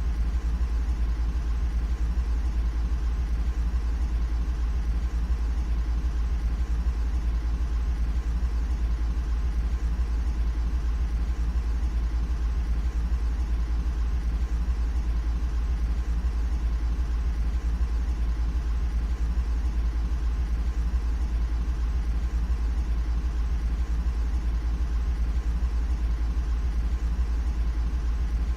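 Steady low engine rumble, unchanging in pitch and level throughout, heaviest in the deep bass.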